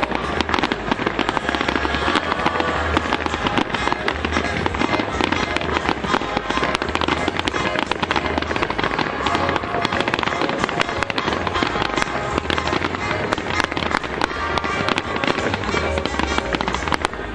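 Fireworks display: continuous rapid crackling and popping of many bursting shells and stars, with no pause.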